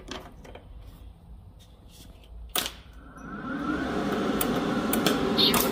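A sharp click about two and a half seconds in, then the ARCCAPTAIN MIG205MP welder's cooling fan spins up, rising at first and then running steadily.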